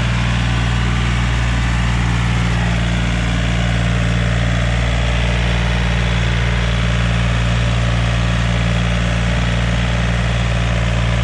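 John Deere 5036 EN tractor's three-cylinder diesel engine running steadily under load while pulling a cultivator lowered into the soil.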